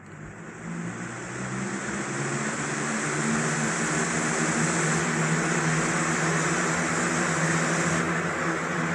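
All-plastic Hurricane box fan switched on at high speed, spinning up: its air rush and motor hum build over the first three seconds, then it runs steadily.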